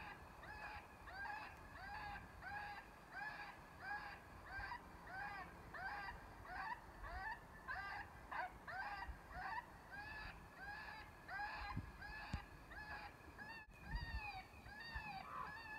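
Electronic predator call playing a recorded eastern cottontail distress call, used to lure coyotes. It gives a steady run of short cries, about two a second, each rising and falling in pitch.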